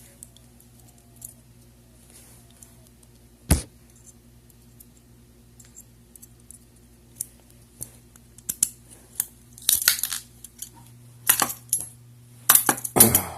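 Steel handcuffs clicking and rattling as a shim is worked into the ratchet: one sharp click about three and a half seconds in, then a growing run of metallic clicks and jangling that is loudest near the end, as the cuff comes free.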